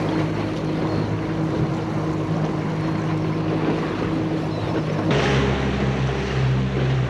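A small fishing boat's motor running steadily under way, with the hiss of water and wind over it; about five seconds in the engine note changes and the hiss grows brighter.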